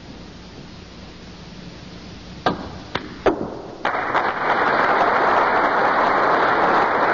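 Snooker balls clicking: three sharp knocks of cue and balls about half a second apart as a red is potted. A second later the crowd breaks into steady applause.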